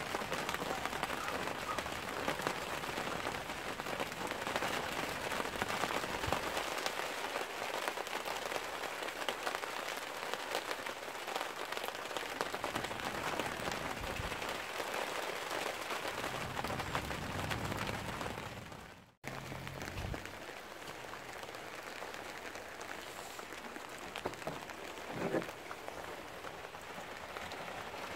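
Steady rain falling, an even hiss of drops. It cuts out abruptly about two-thirds of the way through, then carries on a little quieter.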